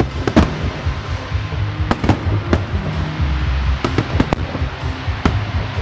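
Fireworks display bursting overhead: a string of sharp bangs at uneven intervals, several close together, over a low rumble, with music playing underneath.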